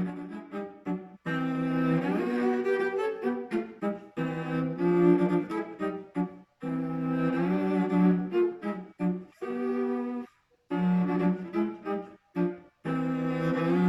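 William Wade 1893 quarter-size child's cello, fitted with Larsen strings, played with the bow: a solo melody of mostly held notes in phrases, broken by short pauses about a second in, around six and a half seconds, and twice more near the end.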